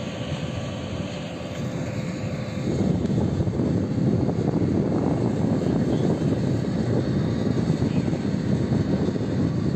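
Engines of a Canadair water-bombing aircraft running with a steady drone, growing louder about a third of the way in.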